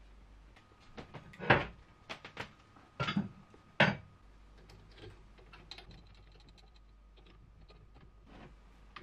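A handful of sharp knocks and clanks of steel parts being handled at a drill press, the loudest about a second and a half and about four seconds in, then a few faint light clicks.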